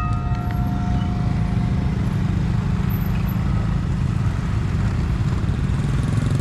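Motorcycles and scooters crossing the railway tracks, their small engines making a steady low traffic rumble. A held electronic tone ends about two seconds in.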